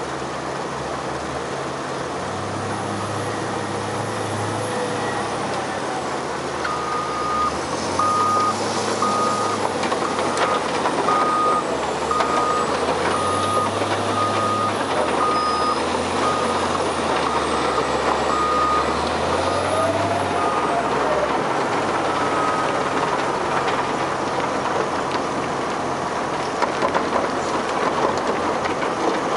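Cat 950H wheel loader working close by: its diesel engine revs up in about four repeated surges while its reversing alarm beeps steadily for roughly twelve seconds, over the continuous noise of a running Extec S-5 soil screener. The engine surges drop away about three-quarters of the way through, leaving the screener's steady noise.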